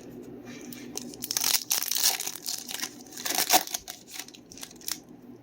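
A foil trading card pack being torn open, its wrapper crinkling and crackling for a couple of seconds in the middle.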